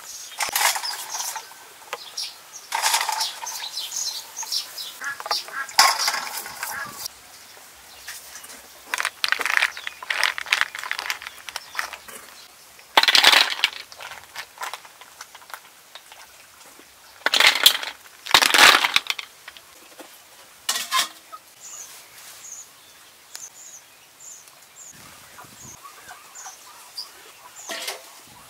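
Snail shells scrubbed with a steel-wool pad and handled in a metal bowl of water: irregular bursts of scratchy rubbing and wet clatter, with several louder bursts mid-way. Small birds chirp faintly near the end.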